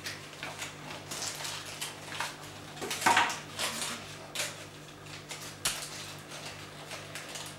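Small plastic pieces of a COVID-19 rapid self-test kit (swab, extraction tube, test cassette) being picked up and set down on a tabletop: irregular light clicks and taps, the loudest about three seconds in.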